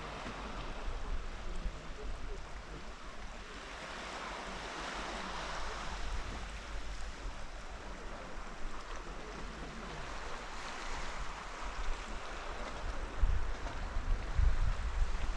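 Sea waves washing on a rocky or sandy shore, a steady hiss of surf that swells and eases, with wind rumbling on the microphone, heavier near the end.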